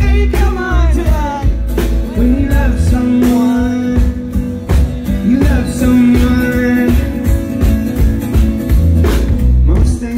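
Live rock band music: acoustic guitar, electric bass and drums playing loudly through the stage PA, in a passage without sung words.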